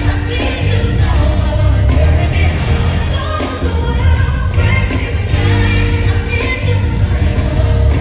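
Live pop-gospel ballad: a female lead singer with band and backing singers, heard from the audience with heavy bass.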